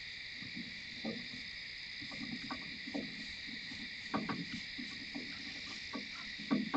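Steady chorus of night insects droning throughout, with irregular soft rustles and thumps close to the microphone, the loudest about four seconds in and near the end, from a white-tailed deer stepping and grazing in the grass.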